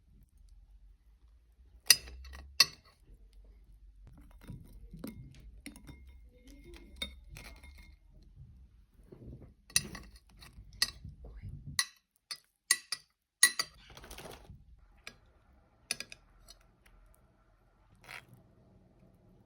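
Glass bowls, dishes and utensils clinking and knocking together during kitchen work, a scattered series of sharp clinks over soft handling noise.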